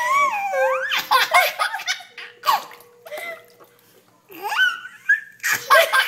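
Baby laughing and squealing in bursts, with a short lull a little past the middle before the laughter starts again.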